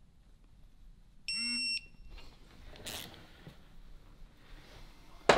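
A single high electronic beep, about half a second long, from a digital torque wrench signalling that the set torque has been reached. Soft handling noise follows, and a sharp click near the end is the loudest sound.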